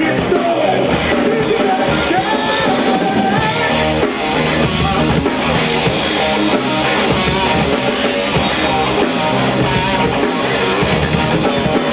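Live hard-rock band playing: drum kit, electric bass and electric guitar, with a singer's voice in the first few seconds.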